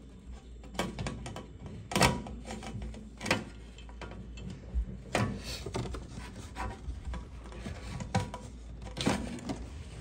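Close handling noise: a shirt sleeve and arm rubbing and bumping against the recording phone, with irregular clicks and knocks and a few louder thumps, as hands work the wire terminals on a dishwasher's heating element.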